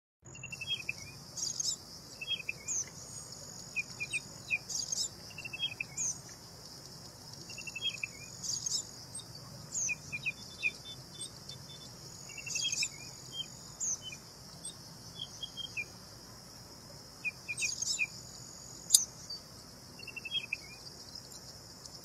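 Common redshank calling: short, falling whistled notes in quick groups of two to four, repeated every second or two, over a steady high-pitched hiss.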